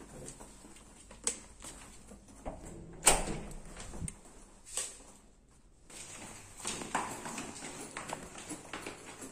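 Handling and movement noises, irregular knocks and rustles, with one loud sharp knock about three seconds in.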